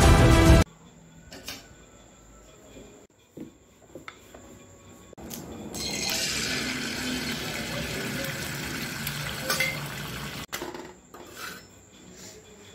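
Intro music stops abruptly, giving way to cooking at a stovetop tawa: a few light clinks and taps of utensils on the pan, then a steady sizzling hiss for about four seconds that cuts off suddenly, followed by more faint taps of a steel spatula.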